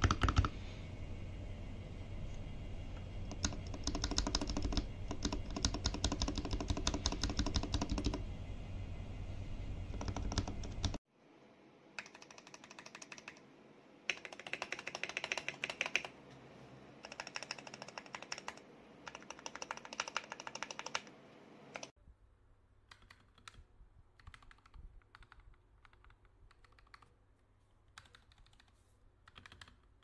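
Typing on mechanical keyboards: fast runs of key clicks and clacks. It comes in three separate clips, with cuts about 11 and 22 seconds in, and the sound gets quieter at each cut.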